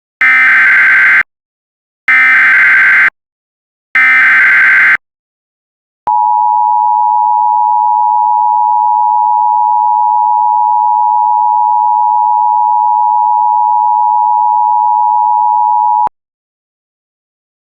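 Emergency Alert System header: three one-second bursts of SAME digital data screech, about two seconds apart, then a steady attention-signal tone for about ten seconds that cuts off abruptly.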